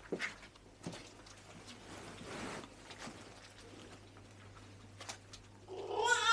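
A few faint clicks and knocks, then near the end a young child's high-pitched, drawn-out cry that rises and then holds.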